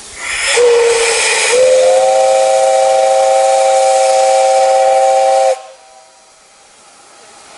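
Steam whistle of JNR Class 8620 steam locomotive No. 8630: a short toot, then one long blast of several notes sounding together at once. The long blast cuts off suddenly, leaving a softer hiss of steam.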